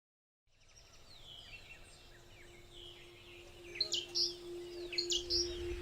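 Wild birds chirping and calling over outdoor background noise, fading in from silence, with the calls growing louder near the end. A faint steady hum runs underneath.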